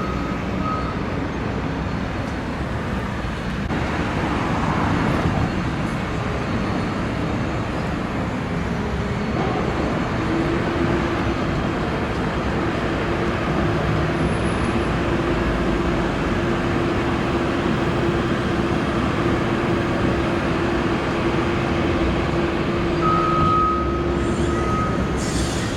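Steady road traffic and heavy vehicle noise, with a steady engine drone that sets in about ten seconds in and holds until near the end.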